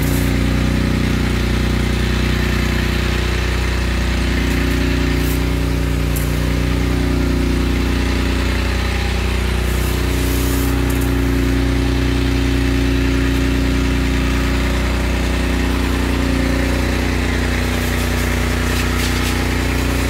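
Fire skid's small engine-driven pump running steadily while the hose nozzle sprays a jet of water.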